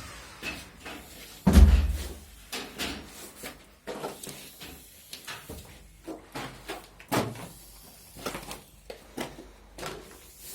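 Irregular knocks and clatter, with one heavy thump about a second and a half in.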